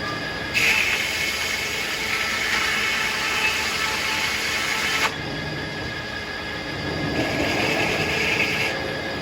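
Circular sawmill running with its blade spinning steadily. About half a second in, the blade cuts into a tulip poplar log, a louder hissing sound lasting about four and a half seconds that stops abruptly. A second, shorter louder stretch comes near the end.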